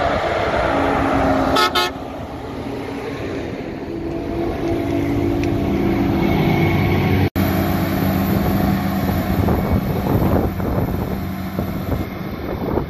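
Diesel engines of a Fendt Vario tractor pulling a forage wagon and a Krone Big X 630 self-propelled forage harvester running steadily under load while chopping grass, the tractor passing close by. A brief toot sounds just under two seconds in.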